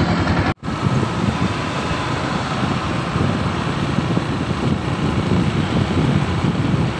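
Steady running and road noise of a moving vehicle, with wind rumbling on the microphone. The sound cuts out for a split second about half a second in.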